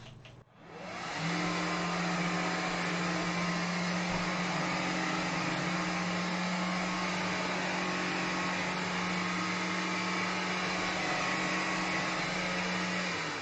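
Vax Glide cordless wet-and-dry hard-floor cleaner switched on, its motor running up to speed in under a second, then a steady hum and hiss as it picks up water from a wet floor. It is switched off and winds down near the end.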